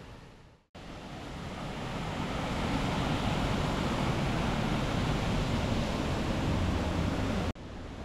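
Steady rushing of a waterfall and fast-flowing river. It cuts out briefly near the start, builds over the next couple of seconds, and stops abruptly just before the end.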